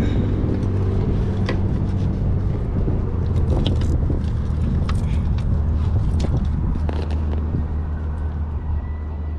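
A boat's outboard motor running steadily at idle with a low, even hum, and scattered light clicks and knocks over it.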